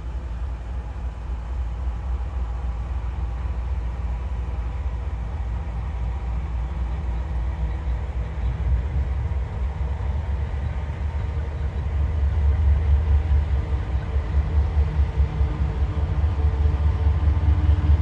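Canadian Pacific diesel locomotives approaching, a low engine rumble with faint steady tones above it that grows louder about two-thirds of the way in.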